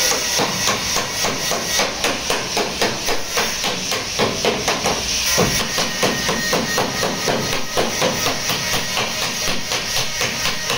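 Hammer blows on the sheet-steel of a car's damaged door pillar, a rapid, even run of sharp metallic strikes at about four a second, as the panel is beaten back into shape during body repair.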